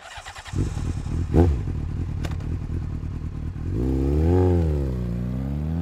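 Motorcycle engine running with a rapid low putter, with two sharp clicks in the first few seconds. About four seconds in it is revved up and back down, then its pitch climbs steadily as it accelerates.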